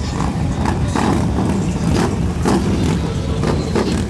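Several Harley-Davidson bagger motorcycles rolling past at low speed, their V-twin engines running steadily in a loud, low-pitched mix.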